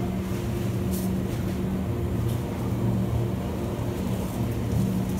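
Steady low machine hum of supermarket refrigeration and ventilation along the chilled produce shelves, with a few faint ticks and rustles.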